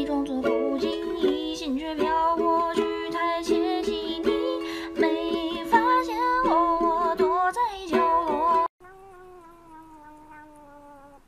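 Background music that cuts off abruptly near the end, leaving a faint, drawn-out tone that slowly falls in pitch.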